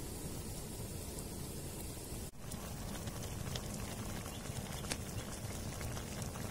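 A pot of rat curry cooking over an open wood fire: a steady sizzle with scattered crackling pops. The sound breaks off briefly at a cut about two seconds in, and the pops come more often afterwards.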